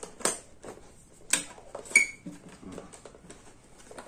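Cardboard box of an action camera being handled and opened by hand: a few sharp clicks and taps, the loudest about two seconds in with a short ringing clink.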